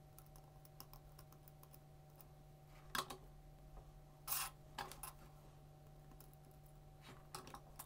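A few faint light clicks and taps of a small black plastic 18650 battery holder being handled and set down on a cutting mat, the clearest about three seconds in and another just after four seconds, over a faint steady low hum.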